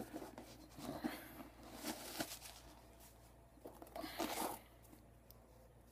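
Rustling and scraping of a Nike KD 6 sneaker being handled while its insole is pulled out: several short, irregular scuffs, the longest about four seconds in.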